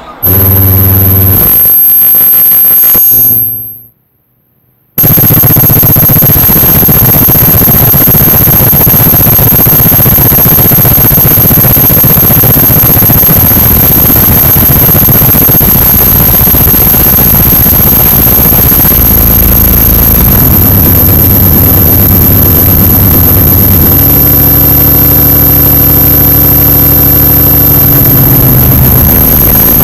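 Harsh, distorted noise soundtrack: a loud wall of hiss with a thin steady high whine and low droning tones, fading out and dropping to silence for about a second early on before slamming back in. Deep droning tones come in over the noise later on.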